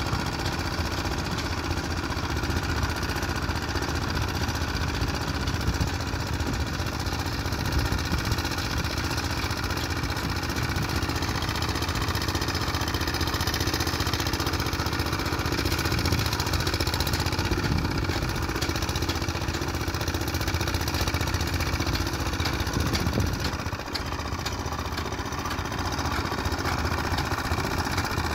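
Plate compactor with a Robin engine running steadily as its vibrating plate compacts sandy soil, with a brief dip in level about 24 seconds in.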